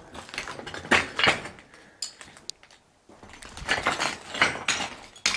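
Footsteps crunching and scraping over rubble and broken debris, with clinks of loose fragments; a quieter pause comes about two seconds in before the steps resume.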